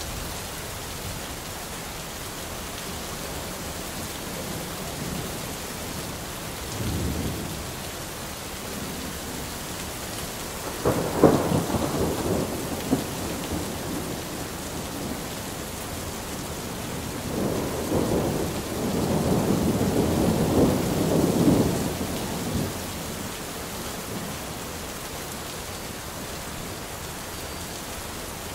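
Steady rain falling, with thunder three times: a short low rumble about a quarter of the way in, a sharp clap a little over a third of the way in that rolls on for a few seconds, and a longer rolling rumble around two-thirds of the way through.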